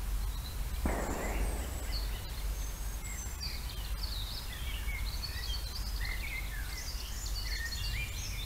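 Woodland songbirds chirping and trilling over a low steady hum. About a second in there is a short, rough burst of noise.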